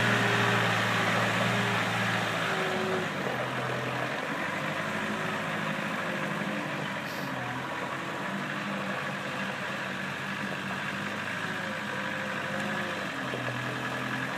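Truck-mounted forklift's engine running as the machine drives off, louder for the first few seconds, then steady and fainter as it moves away, its pitch wavering a little.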